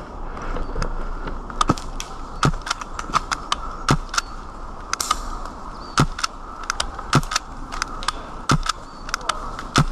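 Sporadic airsoft gunfire: sharp single shots cracking at irregular intervals, one or two a second, over a steady rustling noise.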